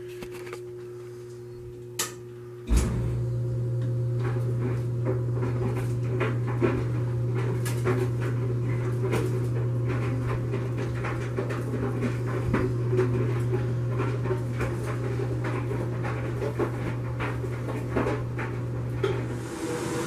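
1957 Maytag 641C clothes dryer started with a click about two seconds in; the motor comes up with a steady low hum and the drum turns, a load of towels and throw rugs tumbling inside with many small knocks. The fan shaft bushing is freshly greased, and the hum drops out near the end.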